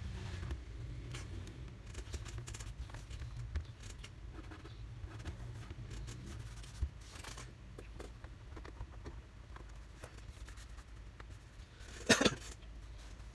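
Small clicks and scrapes of hands and tools working on the parts of a Sony Vaio laptop, over a low steady hum, with a brief louder clatter about twelve seconds in.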